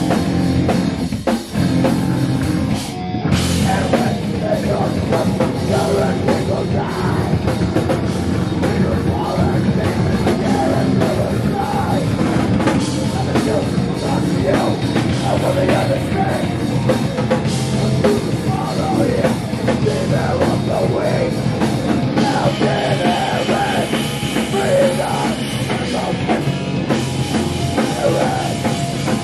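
A rock band playing loud and live on drum kit, cymbals and electric bass guitar.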